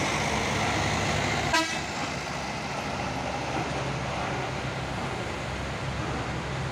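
Heavy truck's diesel engine running steadily, with one short sharp pop or click about a second and a half in.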